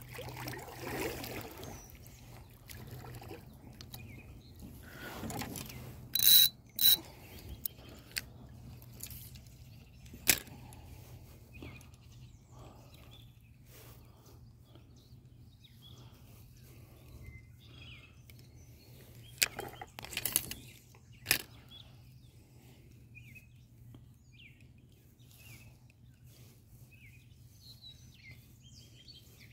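Quiet outdoor ambience with faint scattered bird chirps, broken by a few sharp knocks and clicks: two close together about six seconds in, one near ten seconds, and a cluster around twenty seconds.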